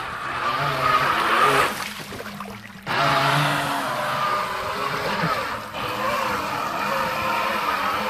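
Electric RC speedboat's brushless motor driving a 3D-printed water jet, whining and rising and falling in pitch with the throttle over the rush of water spray. The throttle drops off a little under two seconds in and opens again sharply about three seconds in, with a short dip near six seconds.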